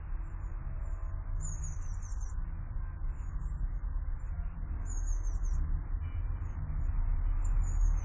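Small garden songbird singing three short, very high, fast trills, about a second and a half in, about five seconds in, and again at the end, over a steady low rumble.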